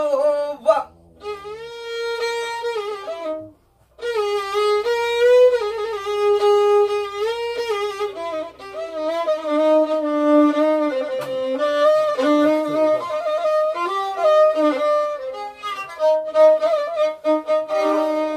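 Solo violin playing a melodic passage of held and sliding notes, with a short break about four seconds in.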